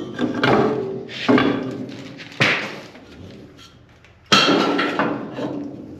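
Metal clanking and ringing as old truck-bed hinge parts are pulled apart and tossed down: about five sharp clanks, the loudest one about four seconds in.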